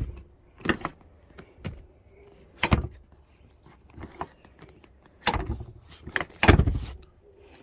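Mercedes-Benz rear seat backs being worked: fold latches clicking, with a series of sharp clicks and knocks and two heavier clunks near the end as the seat backs latch.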